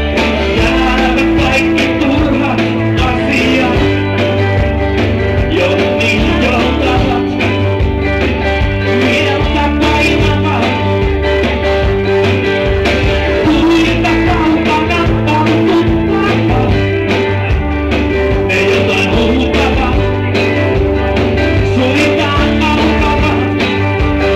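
Live rock band playing: electric guitars, bass and drums with a steady beat through the club's PA, recorded with a mobile phone in the audience.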